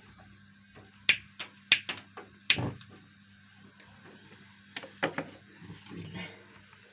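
A string of sharp clicks and knocks of kitchenware being handled, about five close together in the first few seconds and three more near the end, over a faint steady low hum.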